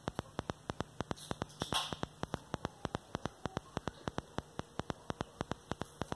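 Rapid, evenly spaced clicking, about seven clicks a second, over a steady low hum and hiss, with two brief soft rustles between one and two seconds in.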